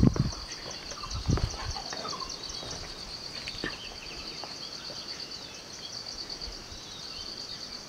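Insects in the forest giving a steady, high-pitched pulsing trill. A couple of low thumps sound near the start and again about a second in.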